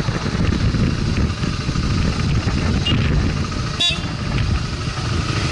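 Motorcycle engine running at road speed, mixed with wind buffeting the microphone as it rides. A brief sharp click about four seconds in.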